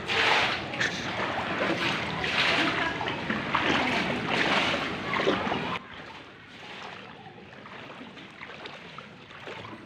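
Floodwater sloshing and splashing as a person wades knee-deep through it. The sound drops suddenly to a faint watery background about six seconds in.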